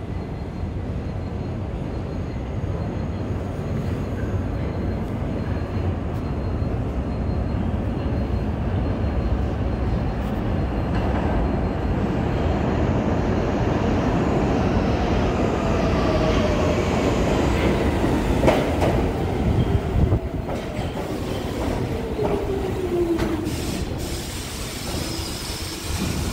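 Kawasaki R62 subway train coming through the tunnel and pulling into the station. Its rumble grows louder as it nears, with a few sharp clacks from the wheels and a falling whine as it brakes to a stop near the end.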